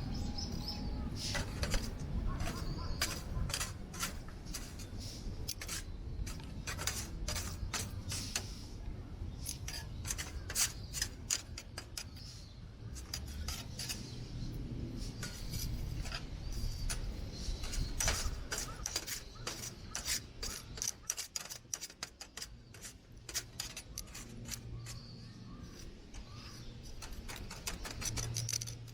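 Wood campfire crackling, with many sharp, irregular pops and clicks from the burning and charred wood, over a low wind rumble on the microphone.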